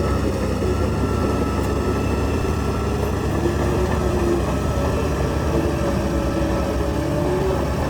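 Heavy diesel earthmoving machine running steadily under load. A deep engine rumble carries a faint wavering whine above it.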